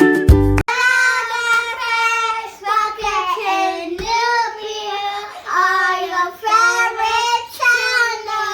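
A child singing in high, gliding phrases, just after a short instrumental jingle with whistling cuts off under a second in.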